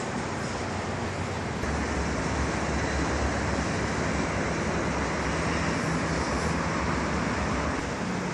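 Steady wash of distant road traffic noise, growing louder with more low rumble about a second and a half in.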